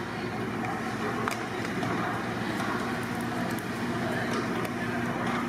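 Steady background noise of a busy outdoor cooking area: a constant low hum with a few light clicks.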